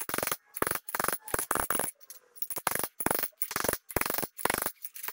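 Hand hammer striking a steel plate over an anvil horn, cold-bending it into a curve: a steady run of ringing metal-on-metal blows, about three a second.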